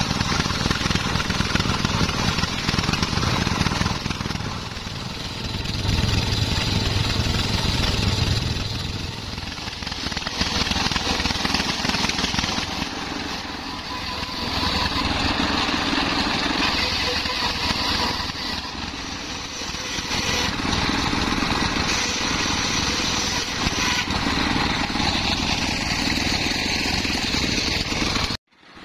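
Homemade circular saw bench driven by a belt from a single-cylinder stationary engine, ripping waru (sea hibiscus) wood into battens. The engine runs continuously while the cutting noise swells and eases as boards are fed through the blade.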